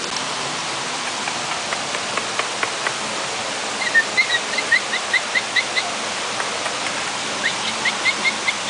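Steady rush of a waterfall. Over it, twice, a run of short, high chirps repeats about three times a second.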